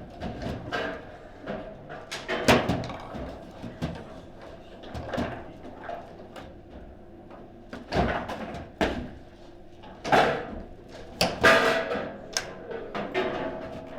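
Table football in play: irregular sharp knocks and clacks as the ball is struck by the rod figures and bangs against the table walls, several loud hits in quick succession about two thirds of the way through.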